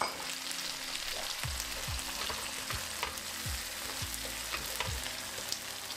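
Onion-tomato masala sizzling in hot oil in a pan, just after finely chopped tomatoes went in, while it is stirred. Regular strokes of the spoon against the pan come from about a second and a half in, with small scraping clicks over the steady sizzle.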